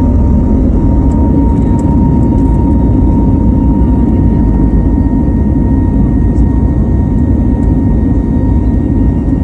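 Airbus A320neo jet engines running steadily: a loud, even rumble with a steady high tone over it.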